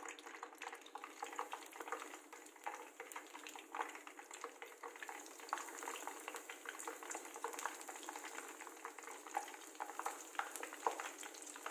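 Breaded bread rolls deep-frying in hot coconut oil in a nonstick pan: a steady crackling sizzle of bubbling oil.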